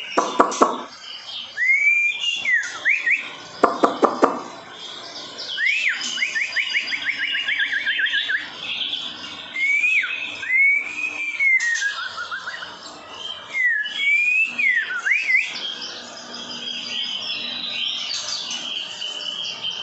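White-rumped shama singing: phrases of arched, swooping whistles with fast trills, repeated every few seconds, over a steady high chirring in the background.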